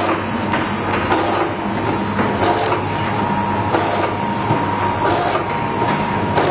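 Vertical automatic pouch packing machine running: a steady mechanical hum with a faint high tone, and a sharp clack from the sealing and cutting jaws about three times every four seconds as each snack pouch is sealed and cut off.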